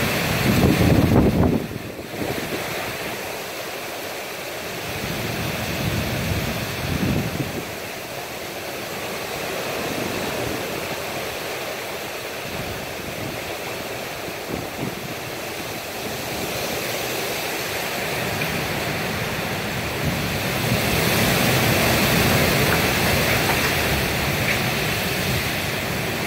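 Heavy storm rain pouring down while gusting wind thrashes the trees. A strong gust hits the microphone in the first two seconds, and the downpour swells again near the end.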